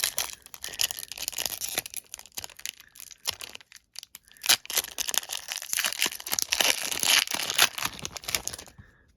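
Foil wrapper of a Pokémon trading card booster pack being torn open and crinkled by hand: two bursts of crackling and tearing with a short lull between, stopping just before the end.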